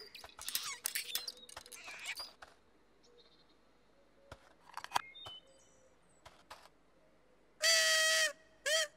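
A small toy trumpet blown twice: one steady note lasting under a second, then a short toot. Earlier, light clicking and rattling from a little wheeled push cart being trundled along.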